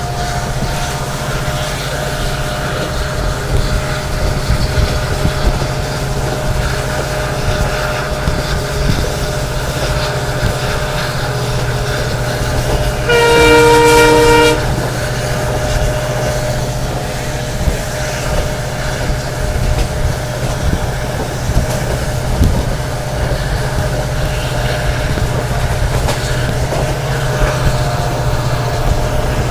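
Inside a passenger train hauled by a WDP4 diesel locomotive: a steady low hum from the EMD two-stroke engine and the wheels rumbling on the track. About halfway through, the locomotive's horn sounds once for about a second and a half.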